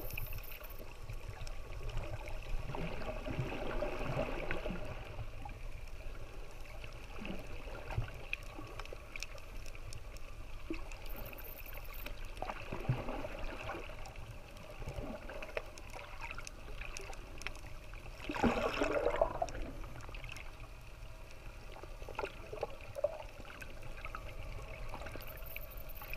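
Muffled underwater sound picked up by a submerged camera: water moving and gurgling irregularly over a steady low rumble. The loudest gurgle of bubbles comes about two-thirds of the way through.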